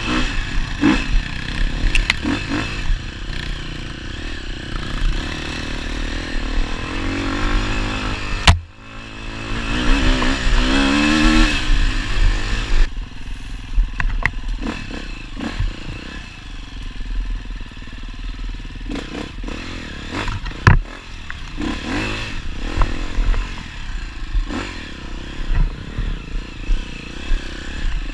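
Dirt bike engine running under load on a trail, its pitch rising and falling as the throttle is worked, with clatter from the bike over rough ground. Two sharp knocks, one about eight seconds in and one about twenty seconds in.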